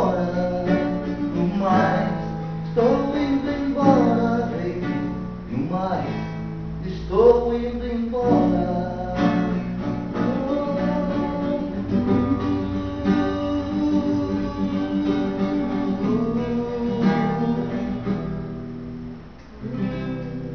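Acoustic guitar strummed, with a man singing along.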